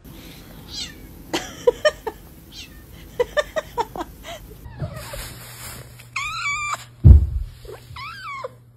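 A cat meowing: two wavering calls near the end. Earlier comes a run of quick sharp clicks, and a loud low thump falls just after the first meow.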